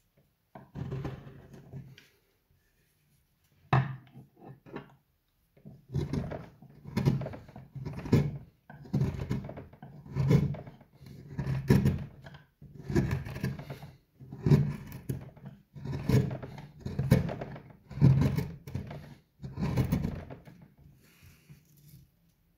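Steel carving chisel cutting into a wooden bowl blank by hand: a run of short scraping cuts about one a second, with a single sharp click before them.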